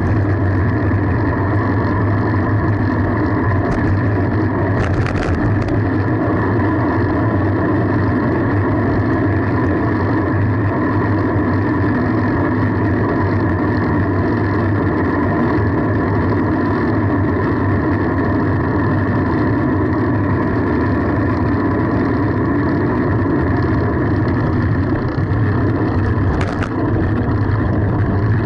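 Steady wind and road rumble on the microphone of a camera riding along on a fixed-gear bicycle, with a brief rattle about five seconds in and another near the end.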